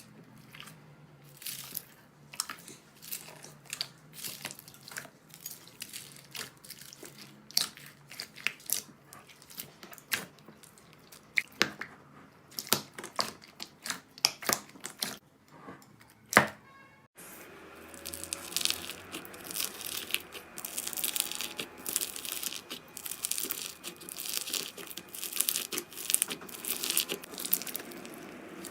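Slime being worked by hand, giving irregular sticky pops and crackling clicks. About 17 seconds in there is a sudden change to a different slime, with denser, faster crackling.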